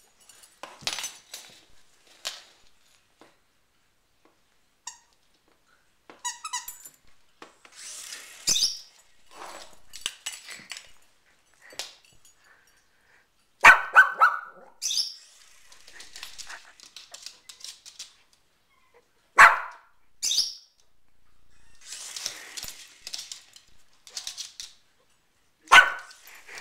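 A small curly-coated dog barking at a toy RC helicopter in a few sharp single barks spread well apart, the loudest about a third, two thirds and nearly all the way through, with quieter noises in between.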